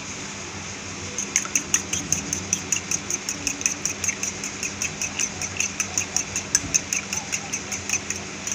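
Raw eggs being beaten in a steel bowl, the utensil tapping against the bowl in a fast, even rhythm of about five clicks a second, starting about a second in.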